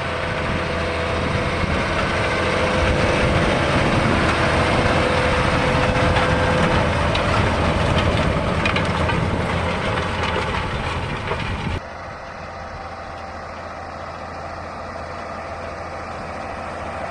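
John Deere 8RX 370 four-track tractor's diesel engine running steadily as it pulls a cultivator breaking the land down. About twelve seconds in the sound drops suddenly to a quieter engine.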